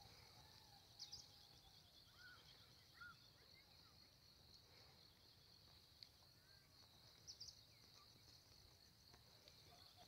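Faint, steady high-pitched chorus of insects such as crickets, with a few short bird chirps scattered through it, two of them sharper and louder, about a second in and about seven seconds in.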